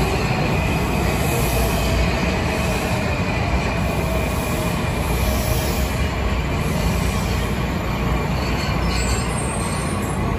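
A Washington Metro train running past along a station platform: a steady rumble of steel wheels on rail, with a steady high tone over it.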